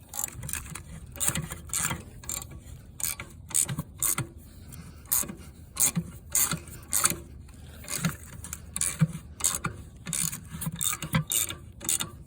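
Irregular metal clicks and clanks of hand tools working on a cast-iron Wisconsin V4 engine during teardown, a few sharp clicks every second.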